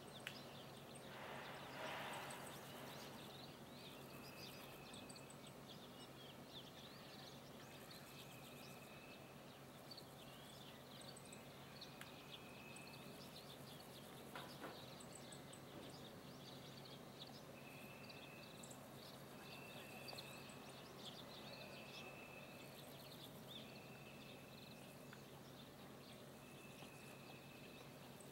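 Faint outdoor ambience: a low steady hum under scattered short chirps, with a high, even call about a second long repeated every few seconds from about four seconds in.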